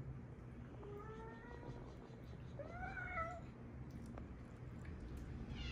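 Domestic cat meowing twice: a short, fairly level meow about a second in, then a second meow that rises and falls in pitch.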